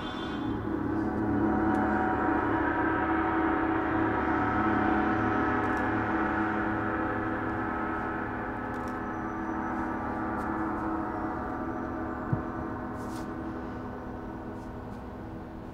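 Large hammered gong played with a soft mallet: a sustained wash of many overlapping ringing tones that swells over the first couple of seconds and then slowly fades. A single sharp click about twelve seconds in.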